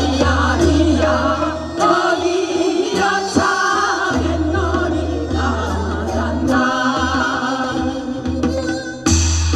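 A group of women singing a Korean folk song (minyo) together through microphones, their voices wavering with vibrato over amplified accompaniment with a steady bass and light percussion. Near the end the voices stop and the instrumental accompaniment carries on.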